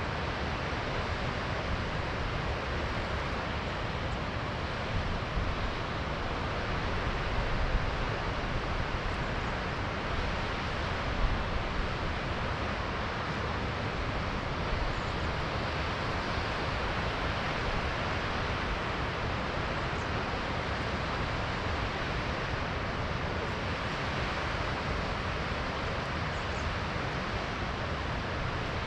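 Steady rushing noise of a mountain waterfall or cascading creek, even and unbroken.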